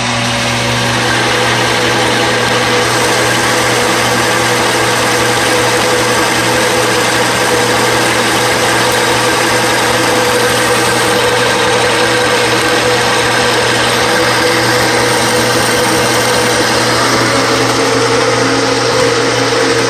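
Rockwell 10-inch metal lathe running under heavy load, taking a 0.100-inch-deep turning cut on a steel shaft with a carbide insert: a steady machine hum with the hiss of the cut over it. The cut is at the limit of what the lathe can push.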